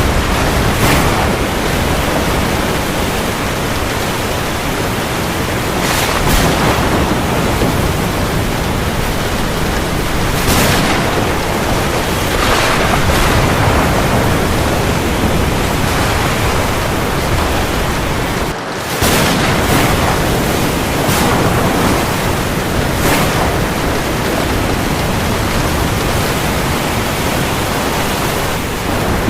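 Heavy rain falling on the sea: a dense, steady hiss that swells every few seconds, with a brief drop about two-thirds of the way in.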